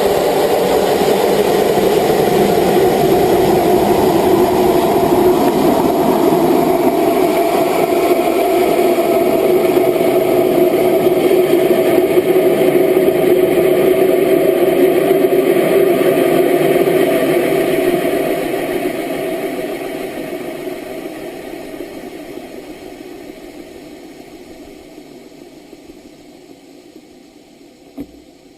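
A steady engine-like drone with several held tones. It fades out gradually over the last ten seconds, and a single short click comes near the end.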